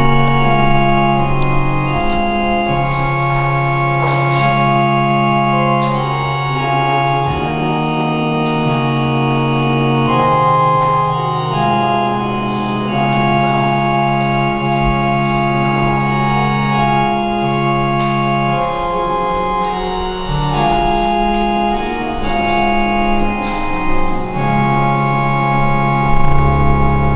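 Church organ playing a slow piece of sustained chords that change every second or two over a held bass line.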